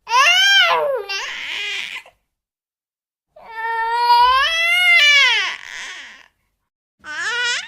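Infant crying in separate wailing cries: one short rising-and-falling cry, a longer wail a little over a second later, and the start of another near the end, with dead silence between them.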